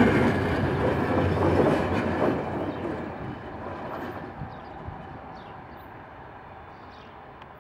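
Passenger train coaches rolling away on the rails, the wheel-on-rail noise fading steadily as the last coach recedes.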